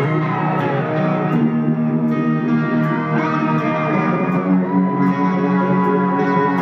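Live rock band playing: electric guitar lines with bending notes over bass, with a steady cymbal tick keeping time.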